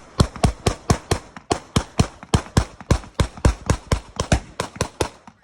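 Rapid semi-automatic gunfire, a fast string of shots at about five a second, some shots louder than others, as a magazine is emptied.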